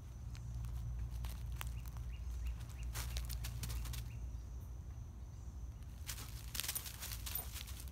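Dry fallen leaves crackling underfoot, in two bursts of steps: one about three seconds in and another from about six seconds in.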